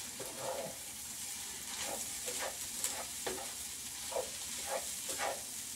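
Egg fried rice sizzling in a nonstick pan as a wooden spatula stirs and scrapes it. Short scraping strokes come about every half second over a steady sizzle.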